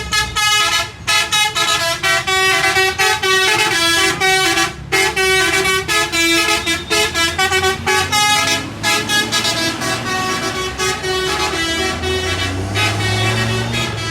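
Bus telolet horn playing a fast tune of many short, stepping notes. A heavy bus engine rumbles underneath, growing louder near the end.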